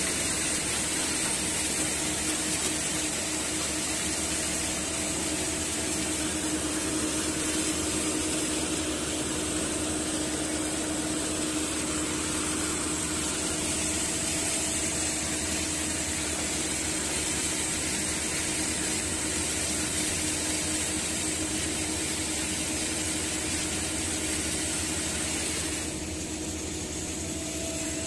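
Shaktiman sugarcane harvester running at work, a steady machinery drone with a constant hum from its engine and the elevator discharging chopped cane.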